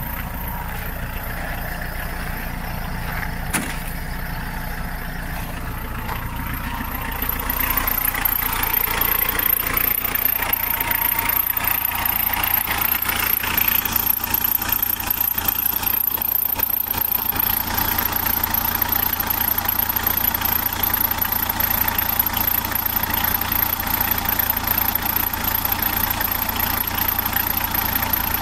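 Renault Megane 1.9 dCi four-cylinder turbodiesel idling cold in −23 °C frost, after a hard cold start. Steady running, louder from about seven seconds in as it is heard closer to the open engine bay.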